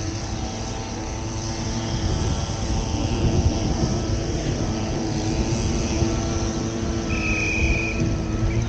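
Steady engine and vehicle rumble with a low hum, and a brief high beep about seven seconds in.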